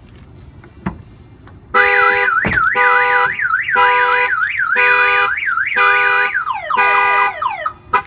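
Excalibur 1670 car alarm siren going off, triggered by the truck's door being opened. A single click comes about a second in. The loud siren starts just under two seconds in and cycles through a fast up-and-down warble, repeated chirping tones and falling sweeps, then stops near the end.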